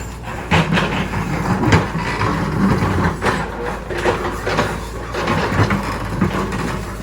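Backhoe engine running steadily under load, with irregular clanks and scrapes as rocks are pushed and dragged.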